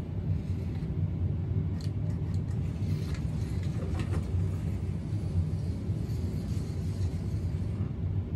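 Small electric slot car running around a plastic track at low throttle: a steady low motor hum and rumble, with a few light ticks.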